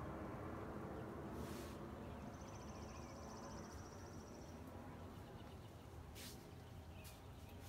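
Quiet outdoor ambience on a rainy day: a steady low hiss with a songbird's rapid high trill lasting about two seconds and a few faint chirps. Two short rustling hisses stand out, one near the start and one about six seconds in.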